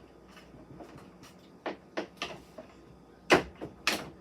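Plastic parts of a toy fire truck being handled while its hubcap is worked off: a series of short, sharp clicks and knocks, the loudest about three seconds in.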